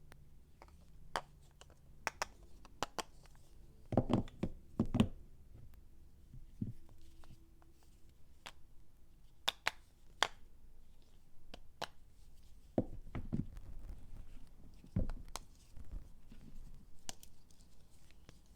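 Hands unpacking bars of soap close to the microphone: scattered clicks, taps and packaging rustles, with a cluster of louder knocks about four seconds in and more near the end.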